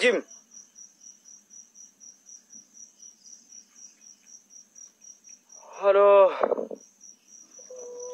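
Insect chirping steadily at night, a regular train of short high chirps, about four a second.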